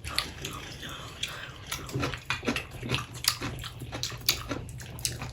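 Close-miked chewing of chip-crusted fried boudin balls: quick, irregular wet mouth clicks and crunches.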